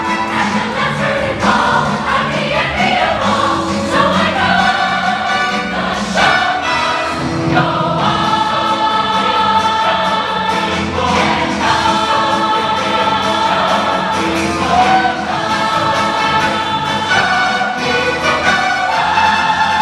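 Large mixed chorus of men and women singing a Broadway show-tune finale together in full voice.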